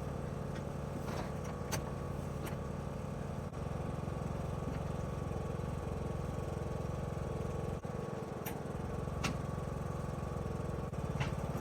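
Riding lawnmower engine running steadily at an even speed, with a few faint clicks over it.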